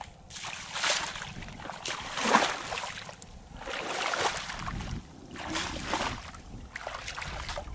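Footsteps wading through shallow muddy water, splashing and sloshing at each step, about one step every second or so, the loudest a little over two seconds in.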